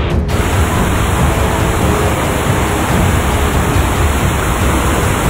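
Fast-flowing flash-flood water rushing through a street, a loud, steady rush.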